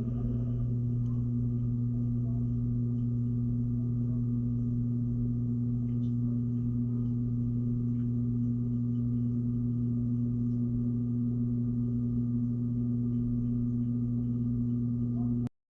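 Washing machine running with a steady low hum, heard from a camera inside the drum. The hum cuts off suddenly near the end.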